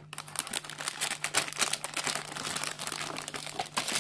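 Clear plastic bags holding a Gunpla model kit's plastic sprues crinkling and crackling steadily as they are handled and lifted out of the kit box.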